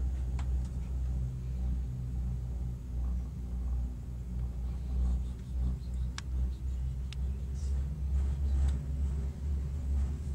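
Low rumble inside a moving Genting Skyway gondola cabin as it travels along the cable, with a couple of light clicks a little past the middle.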